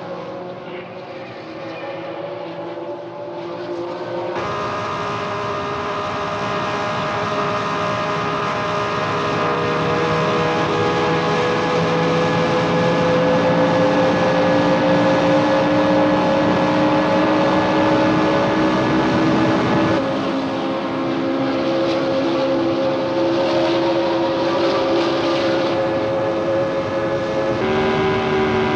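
Grand Prix racing car engines running at speed: several steady engine notes over a rushing noise, one slowly climbing in pitch as the sound grows louder through the first half. The sound changes abruptly about four seconds in and again near the end.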